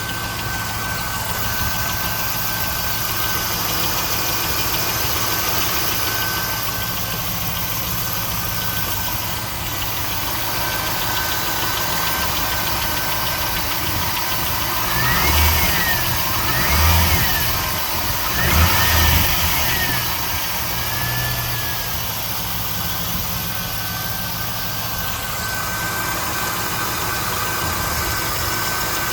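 LS1 5.7-litre V8 idling with a sewing-machine-like valvetrain tick, which the owner is unsure is lifter noise or normal for the engine. About halfway through, the engine is blipped several times in quick succession, each rev rising and falling back to idle.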